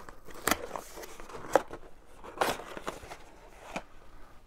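Cardboard box and foam packing insert being handled and pulled out: a few short scattered rustles and knocks.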